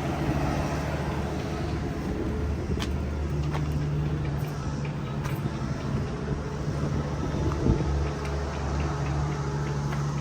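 A vehicle engine running steadily with a low, even hum, with a few light clicks and one sharper knock about three-quarters of the way through.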